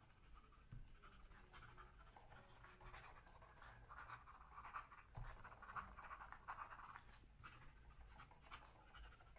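Faint, irregular scratching of a fountain pen's Jowo #6 medium nib on 90 GSM dotted paper during quick, fast handwriting.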